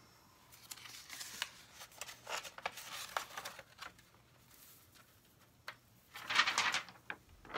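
Fingers rubbing and pressing loose glitter onto a glitter-covered wine glass over paper: gritty rustling and scratching in irregular bursts, loudest near the end.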